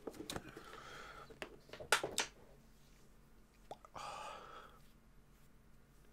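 Quiet breaths of a man fighting back tears, with a longer breath about four seconds in and a few sharp clicks, two of them close together about two seconds in.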